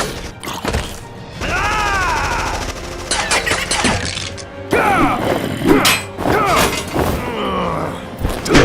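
Dramatic action score mixed with cartoon fight sound effects: heavy thuds, gun-like blasts and sharp whacks, with swooping, wavering pitched effects between the hits.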